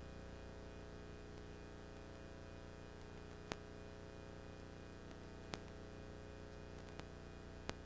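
Faint steady electrical hum made of several steady tones, with four faint sharp clicks scattered through it.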